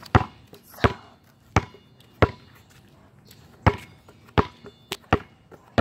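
A basketball being dribbled on pavement, seven sharp bounces at a steady walking pace about 0.7 s apart, each with a short ringing ping, with a pause of about a second and a half near the middle.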